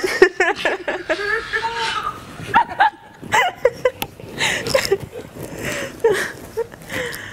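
Women laughing, in short repeated bursts of giggling.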